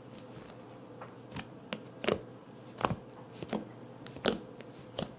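Slime being kneaded by hand, giving irregular sharp clicking pops, loudest a little after two seconds and around three seconds in.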